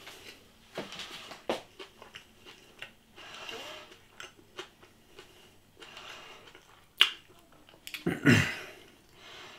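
A person chewing a burger, with scattered small mouth clicks and soft chewing noises, and a short voiced sound falling in pitch a little after 8 seconds in.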